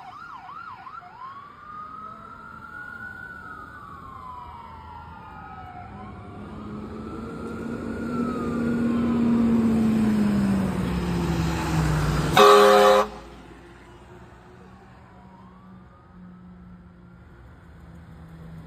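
Emergency sirens from fire apparatus heading out on a call. An ambulance siren yelps, then wails and fades as it drives off, while a fire engine pulls out with its siren wailing and its engine growing louder as it passes. The fire engine gives one short, loud horn blast about two-thirds of the way through, then the sirens fade into the distance.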